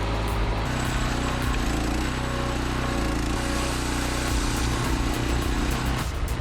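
Heavy forestry machinery engine running steadily under load, changing abruptly twice.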